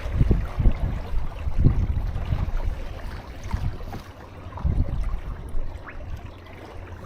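Wind buffeting the microphone in irregular gusts, over water rushing and sloshing against a small sailing catamaran's hulls.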